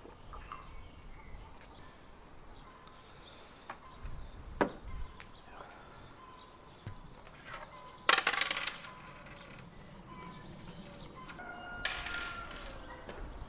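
Steady high chirring of crickets, with a few sharp clinks, the loudest about eight seconds in.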